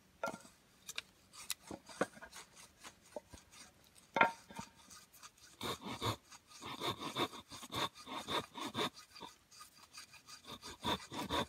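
Hatchet blade shaving thin curls off a stick of wood braced on a birch stump, carving a feather stick. It starts as scattered scrapes and taps, then from about halfway in becomes a run of quick, regular scraping strokes. The carver judges this attempt a failure and puts it down to an edge that is not sharp enough.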